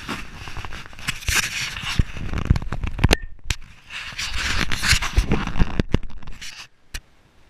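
Rough rustling and scraping against a body-worn camera's microphone, with scattered knocks, in two long spells that die away near the end.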